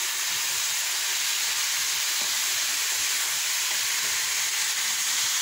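Diced zucchini and tomato frying in oil in a deep pan, a steady sizzle, while a wooden spatula stirs them with faint knocks against the pan.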